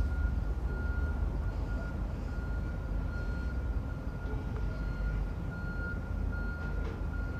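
Diesel locomotive of a commuter train running slowly with a low rumble, its bell ringing one steady note over and over at an even pace.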